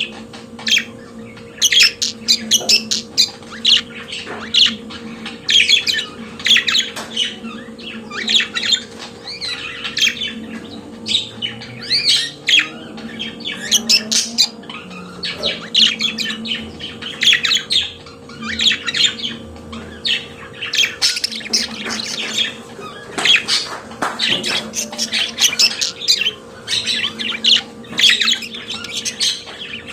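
Budgerigar warbling and chattering: an unbroken stream of quick, scratchy chirps and squawks over a faint steady low hum.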